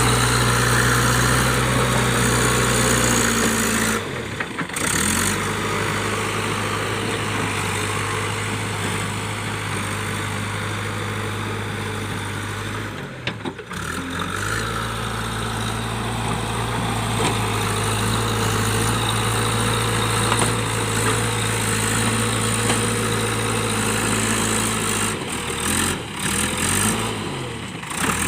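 Diesel engine of a JCB 3DX backhoe loader running steadily at work, with a low hum and a broad machine noise over it. The sound breaks off briefly about four seconds in, again around thirteen seconds in, and a few times near the end.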